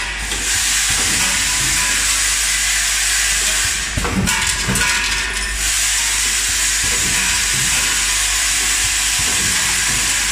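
Automatic sachet-packing line for screws running, with a steady loud hiss like escaping air. About four and five seconds in, the hiss briefly drops and a few knocks and clicks come through.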